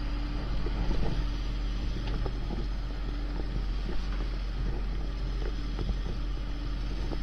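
Fishing boat's engine running steadily with a low hum, with water splashing beside the boat.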